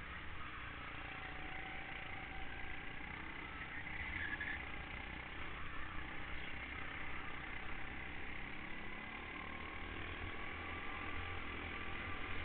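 Go-kart engine running under way on the track, its pitch dipping and rising through the corners, with wind rumble on the onboard microphone.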